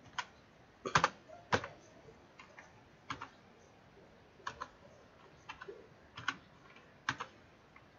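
Computer keyboard keys pressed one at a time: separate clicks with irregular pauses between them, the two loudest strokes about a second in.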